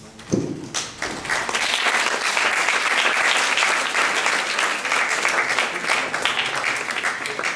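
Audience applauding in a hall, a dense crackle of clapping that builds about a second in and tapers off near the end. A short low thud comes just before the clapping starts.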